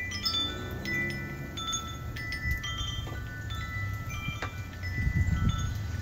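Wind chimes ringing, their metal tones struck at random one after another and each fading slowly. Under them runs a low rumble that swells about five seconds in.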